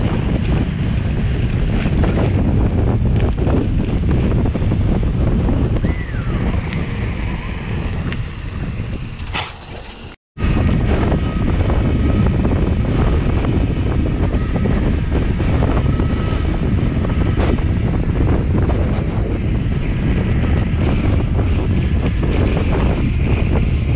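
Heavy wind buffeting the camera microphone while a mountain bike is ridden, with scattered clicks and rattles from the bike. The sound dips and drops out for a moment about ten seconds in, then carries on.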